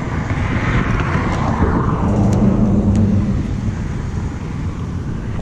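A motor vehicle passing: a low rumble that swells about half a second in, with an engine hum from about two seconds in that fades by three and a half seconds.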